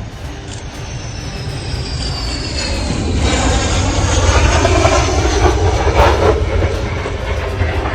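Sukhoi Su-25 jet's engine whine falling steadily in pitch. About three seconds in, a loud grinding, rushing noise with a heavy low rumble sets in as the jet slides along the runway on its belly with no landing gear.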